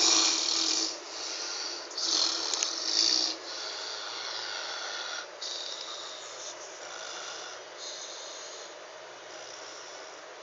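Snoring: two loud, rasping snores in the first three seconds, then a run of quieter snores about once a second.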